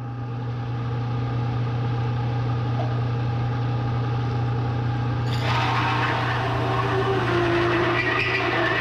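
Bridgeport milling machine running with a steady hum while a bi-metal hole saw cuts a steel tube. The harsh cutting noise eases off at first and comes back, grinding and scraping, about five seconds in.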